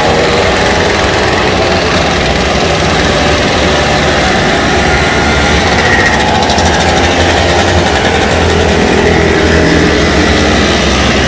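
A group of old two-stroke mopeds riding past together, several small engines buzzing at once, loud and steady.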